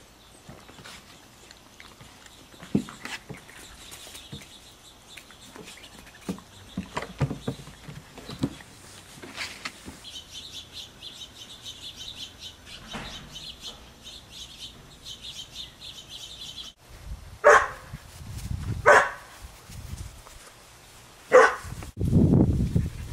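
Puppies playing, with scattered small scuffles and yips, then three sharp barks in the second half.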